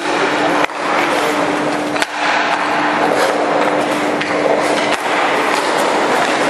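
Ice hockey skates scraping and carving on rink ice during shooting drills, over a steady hum that fades out about two-thirds of the way in. A few sharp clicks cut through, the first about half a second in.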